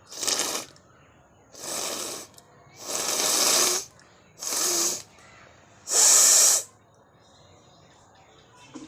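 A person blowing their nose hard five times in a row. Each blow is a rushing, hissing burst of air lasting half a second to a second, with short pauses between; the fourth blow is the loudest.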